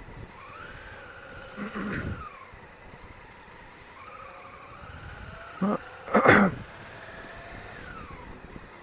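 Honda Africa Twin CRF1000L parallel-twin engine running at low speed through stop-and-go traffic, its pitch rising and falling as the throttle is opened and eased off, over steady wind noise. Two brief louder sounds cut in, about two seconds in and, louder, about six seconds in.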